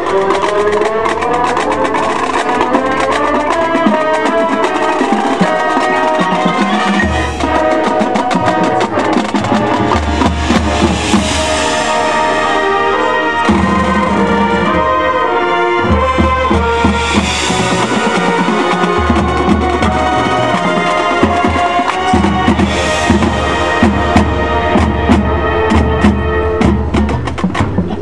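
Marching band playing full out: wind instruments over a drumline of snare, bass drums and other percussion, opening with a rising run and held low bass notes beneath.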